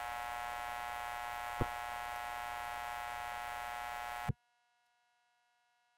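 Steady electrical mains hum with a buzzing edge and a faint tick about a second and a half in. It cuts off abruptly a little over four seconds in, leaving near silence.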